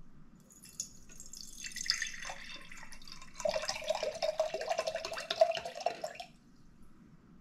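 Coconut water poured from a can into a glass mason jar, splashing as it falls; from the middle of the pour the filling jar gives a ringing note that rises slightly as it fills, and the pour stops about six seconds in.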